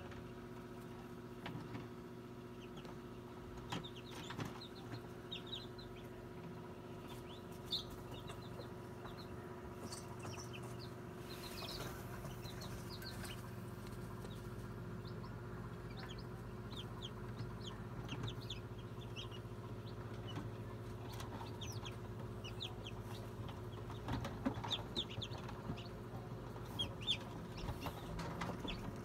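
Newly hatched chicks peeping inside an egg incubator: many short, high cheeps scattered throughout, coming thicker near the end, over the incubator's steady hum.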